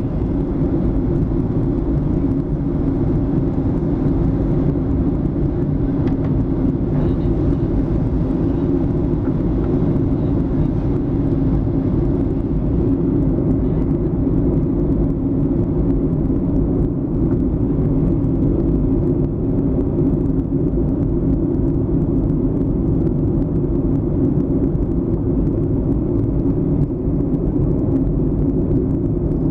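Jet airliner cabin noise in flight: the steady low drone of the engines and air rushing past the fuselage, heard from a window seat.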